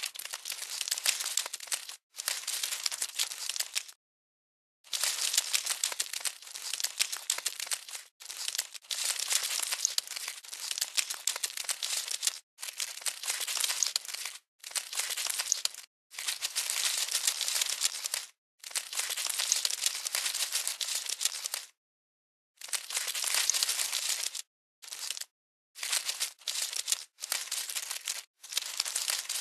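Crackly, rustling sound effect, like scuttling or crinkling. It comes in bursts of one to four seconds that start and stop abruptly about a dozen times, with dead silence between them.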